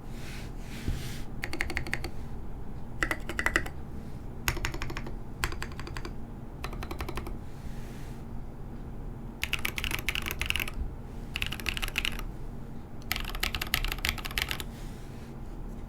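Typing on a full-size Southpaw mechanical keyboard with lubed Holy Panda tactile switches, lubed Zeal stabilizers and SA keycaps: runs of rapid keystrokes separated by short pauses.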